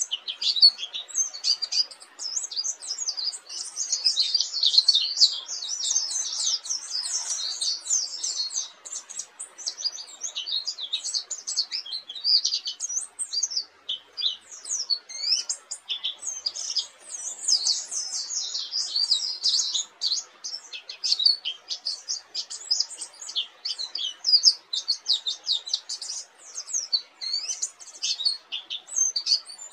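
Dakun-type pleci (white-eye) singing a long, unbroken high-pitched twittering song of rapid chirps, the continuous 'ngerol' style that bird keepers prize.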